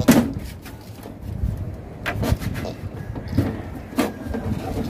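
Plastic knocks and scrapes from the back housing of a CRT television being handled and worked loose, with a sharp knock at the start and a few more about two, three and a half, and four seconds in.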